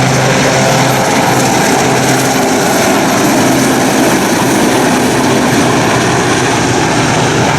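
Westland Sea King helicopter running loud and steady, a dense rotor and turbine noise with a low hum that fades a couple of seconds in.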